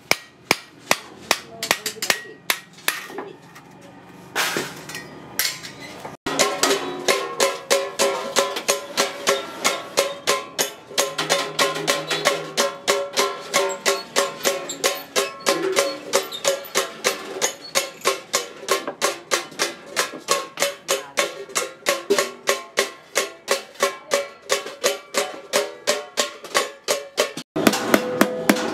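Hammer striking a chisel and thin stainless steel sheet in quick, even blows, about three or four a second. From about six seconds in, the blows ring out with a steady metallic tone.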